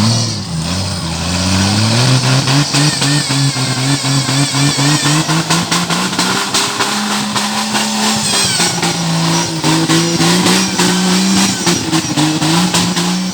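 Jeep Cherokee engine in a tubular-frame off-road buggy revving under load, its pitch climbing over the first couple of seconds, rising again about seven seconds in and dropping back a second or so later. Frequent sharp knocks and clatter run alongside the engine.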